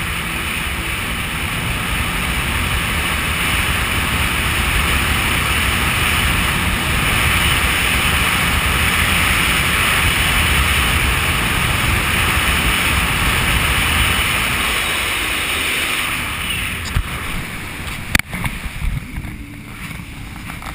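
Jet ski running at speed: a steady rush of wind buffeting the microphone over engine and water noise, easing off about sixteen seconds in. Near the end come a couple of sharp knocks as the camera is handled.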